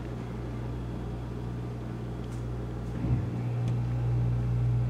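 A steady low electrical hum that grows a little louder about three seconds in, with a couple of faint ticks.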